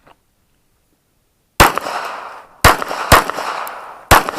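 Handgun shots fired in a timed 1-2-3 drill string: one shot about a second and a half in, then a pair about half a second apart, then the first of the final three near the end. Each shot has a ringing echo tail.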